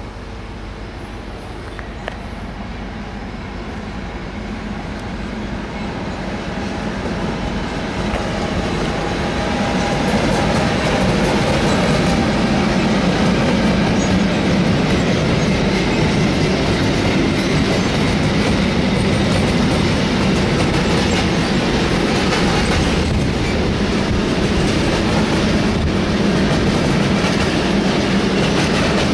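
Freight train hauled by a class 185 electric locomotive with Habbins sliding-wall wagons, growing louder over about the first ten seconds as it approaches. The wagons then roll past steadily, their wheels clattering over the rail joints.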